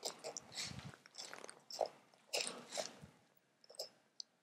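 Fillet knife slicing a skinned burbot's back loin away from the backbone and ribs on a plastic cutting board, in faint, irregular cutting strokes.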